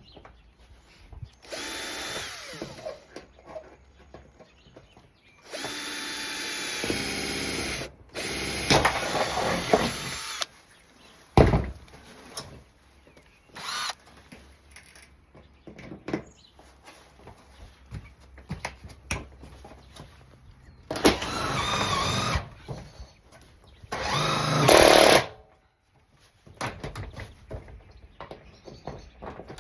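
Power drill running in about five bursts of one to three seconds each, with a sharp knock between the third and fourth bursts and quieter rattling between runs.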